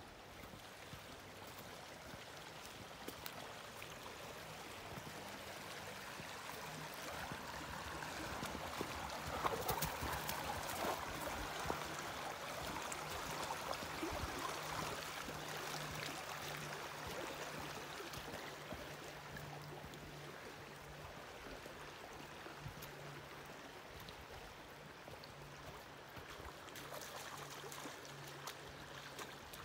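Shallow creek flowing steadily, louder for a while about a third of the way in.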